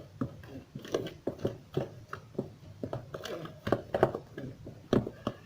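Thick semolina basbousa batter with yogurt being stirred in a bowl: irregular clicks and scrapes, several a second.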